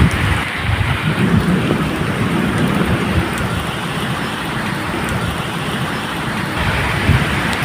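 Steady medium rain falling, with low thunder rumbling and swelling irregularly beneath it.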